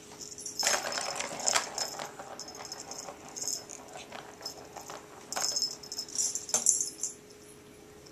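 Siamese cat pawing at her toy ball: jingling and rattling in irregular short bursts, with a stretch of scuffling about a second in.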